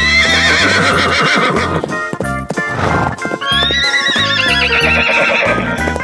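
A horse whinnying twice. Each neigh lasts about two seconds, quavering and falling away in pitch. Plucked-string background music plays throughout.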